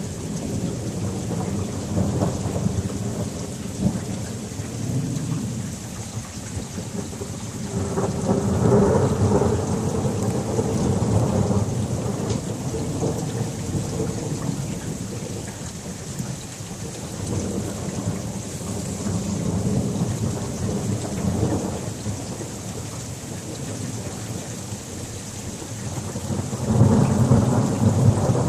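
Thunderstorm: thunder rumbling in several long rolls that swell and fade over steady rain, the loudest roll near the end.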